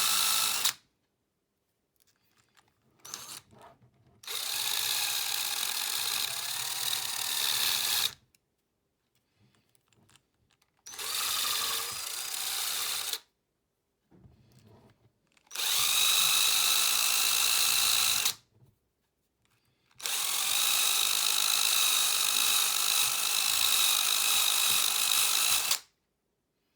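Power tool polishing handmade metal spoon lures, its motor whining in repeated runs of two to five seconds with short pauses between. The pitch wavers slightly as the work is pressed against it.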